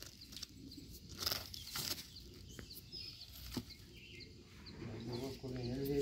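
Quiet outdoor background with small repeated bird chirps and a few soft rustles, then a low voice starting to speak about five seconds in.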